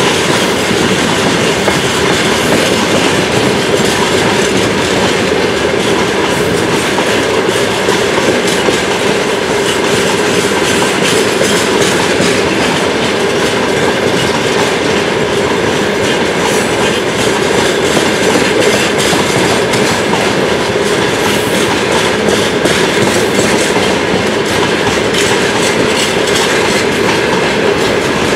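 Train wheels running on the rails, a steady loud rumble with a rapid clickety-clack over the rail joints.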